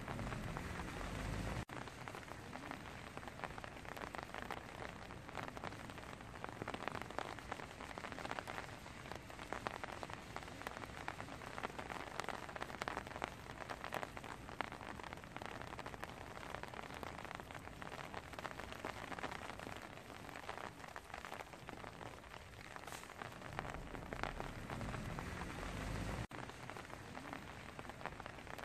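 Steady rain pattering, with many small drop ticks. A low rumble comes in at the very start and again about 24 to 26 seconds in, each cutting off suddenly.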